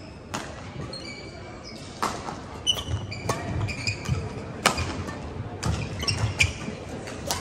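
Badminton rally on a hardwood court: sharp racket strikes on the shuttlecock, denser from about two seconds in, with shoes squeaking on the wooden floor and low footfall thuds.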